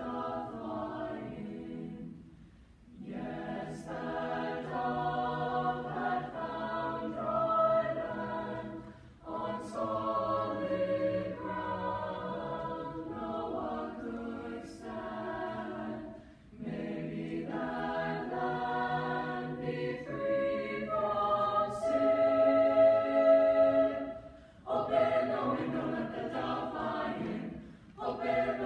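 Mixed high school choir singing sustained chords, in phrases broken by short breaths every six or seven seconds, with a few crisp "s" consonants.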